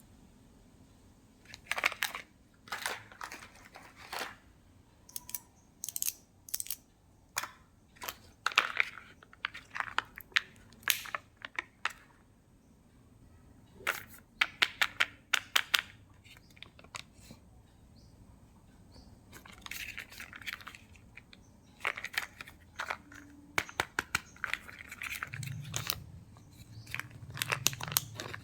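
Kinder Joy egg packaging being torn open and crinkled by hand, in irregular short rustles mixed with sharp plastic clicks.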